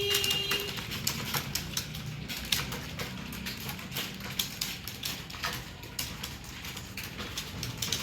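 Fast, uneven typing on a keyboard: a rapid run of key clicks. A tone carried over from just before stops under a second in.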